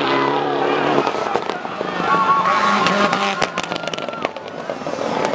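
Rally car engine running at a steady pitch, then a quick run of sharp pops and cracks about three seconds in, with people's voices in the background.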